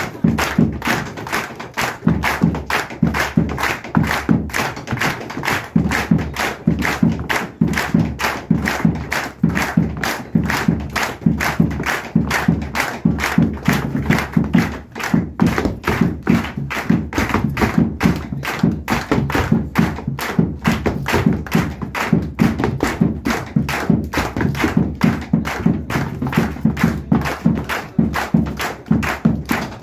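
Zapateo: boots stamping and heel-tapping on a wooden floor in a fast, steady rhythm, with a bombo drum beating along.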